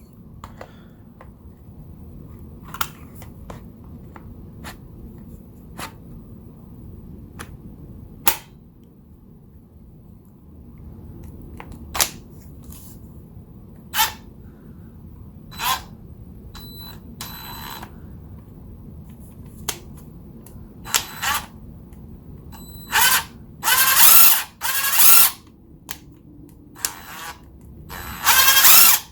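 Workpro 20V cordless impact wrench with a brushed motor: sharp plastic clicks and knocks as the battery pack is fitted and the tool is handled, then several short bursts of the motor spinning the free anvil as the variable trigger is pulled briefly near the end.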